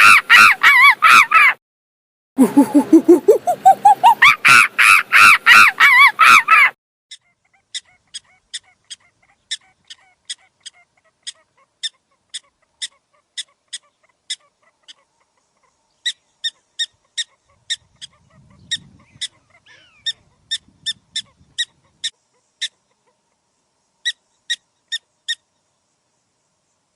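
An animal's loud, rapid, pulsed calls rising in pitch, broken by a brief pause, then a long series of short, high chirps or squeaks, about two a second, in spaced groups.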